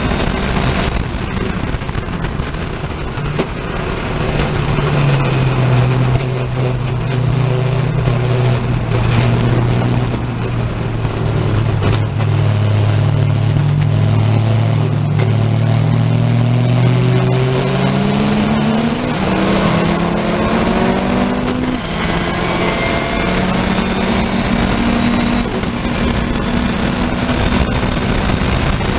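Onboard sound of a race car's engine, heard from inside the car. It starts flat out, drops to a low steady note through a slow corner, then climbs steadily in pitch under hard acceleration. A gear change comes about three-quarters of the way through, and the engine then holds a high steady note at full speed.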